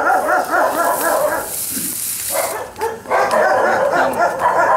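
A small animal held in the hand calling in a fast run of short yelping cries, several a second. The cries break off for about a second and a half partway through while a hiss is heard, then start again.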